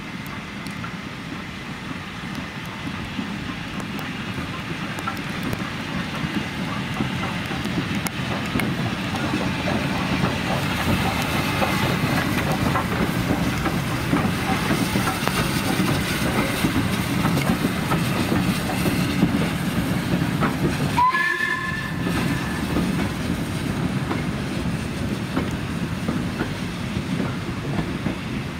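A steam-hauled train passing, its noise building over about ten seconds as it draws level, with wheels clattering on the rail joints. About three quarters of the way through, a brief high whistle note sounds.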